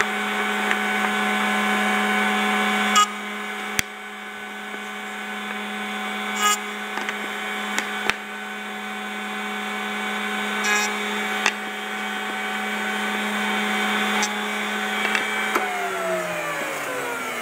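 Bosch 1617 EVS router running at speed under a router table, a steady whine with a few brief sharp noises as the chamfer bit cuts the edges of a small hardwood piece. Near the end the router is switched off and winds down, its pitch falling.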